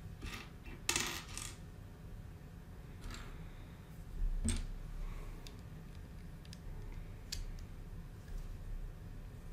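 Plastic Lego pieces clicking and clattering as they are handled, an irregular scatter of short sharp clicks. The loudest come about one second in and about four and a half seconds in.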